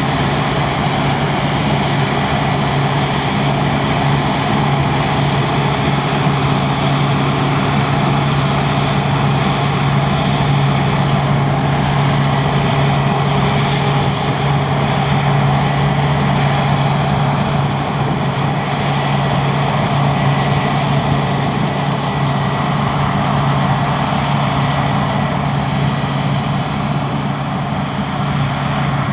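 Large diesel farm machinery running steadily at working speed: a constant engine hum under a dense mechanical noise, with no change in pitch.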